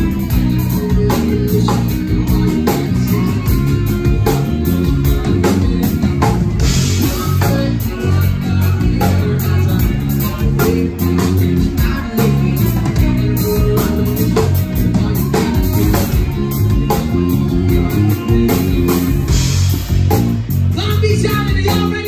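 Live band playing: electric guitar, bass guitar and drum kit with a steady beat, with sung vocals over it.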